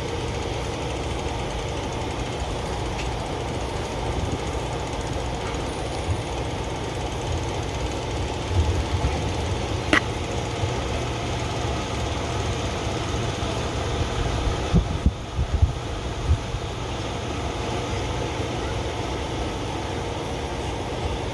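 Steady low mechanical rumble, with a single sharp click about ten seconds in and a few soft knocks a little later.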